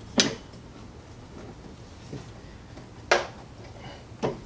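Flathead screwdriver prying a strut tower brace down onto the strut tower studs: three sharp metal-on-metal clicks, one near the start, one about three seconds in and one near the end.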